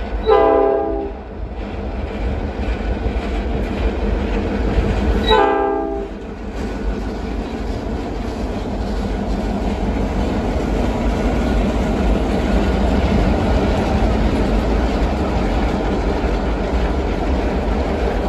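Canadian National diesel freight locomotive's air horn sounding two short blasts about five seconds apart as a horn salute, followed by the steady rumble of the locomotives and freight cars passing close, growing louder.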